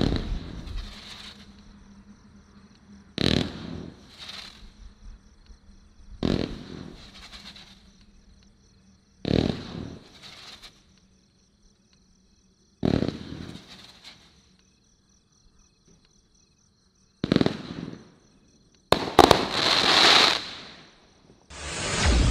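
Consumer fireworks cake (Brothers Pyrotechnics Pyrolife, a 500 g 65-shot cake) firing its shots: about nine sharp bangs a few seconds apart, each trailing off in a hiss and crackle. The longest, loudest burst of crackling comes near the end.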